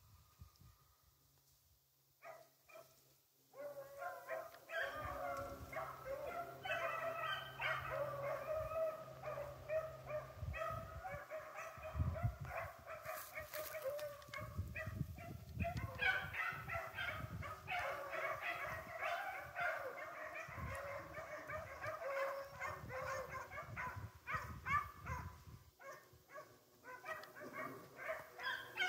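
A pack of rabbit-hunting dogs baying and barking on the trail of a running swamp rabbit. Many overlapping voices start about three and a half seconds in and go on almost without a break.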